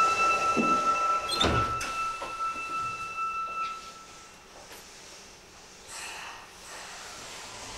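Subway car doors closing at a station stop: a steady electronic warning tone sounds, and the sliding doors shut with a thud about one and a half seconds in. The tone stops about four seconds in, leaving the quieter hum of the standing car.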